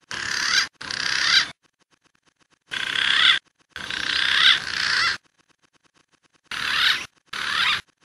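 Green pigeon (punai) calls played as a lure: six rasping, warbling phrases in three pairs, each phrase swelling in loudness before it breaks off.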